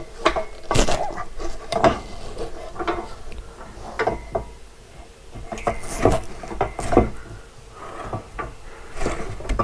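Irregular metal knocks and clatter from handling and setting up a steel masonry prop, with a few sharper strikes spread through.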